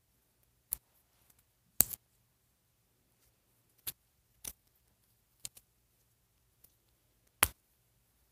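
Scattered sharp clicks and taps of small hard plastic pieces being handled, about eight in all and loudest near two seconds in and near the end, typical of fitting a fashion doll with her shoes and accessories.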